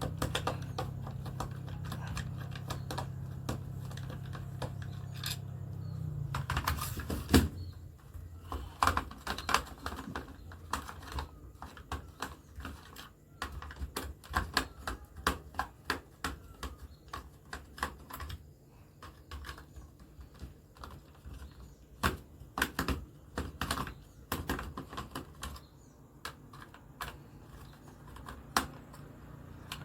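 Screwdriver backing the screws out of a plastic mosquito bat's rear casing: many irregular small clicks and ticks of metal on plastic. A low steady hum is under the first six seconds, then stops.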